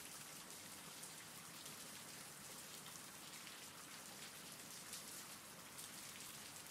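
Faint, steady rain: an even hiss of rainfall with scattered drop ticks.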